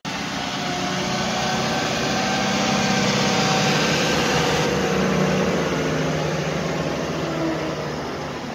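New Holland T7 tractor's diesel engine running steadily as it moves close by, growing louder toward the middle and fading again near the end.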